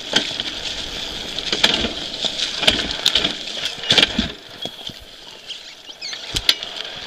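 Dirt bike ridden along a forest singletrack: its engine running at low revs under a rattle of chassis clatter and repeated sharp knocks as the bike rolls over sticks and ruts. It goes quieter for a couple of seconds past the middle, then there are more knocks.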